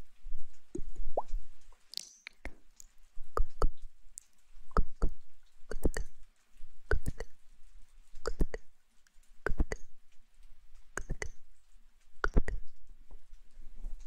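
Wet mouth sounds close to a microphone, lips and fingers smacking and popping in quick pairs about once every second and a half.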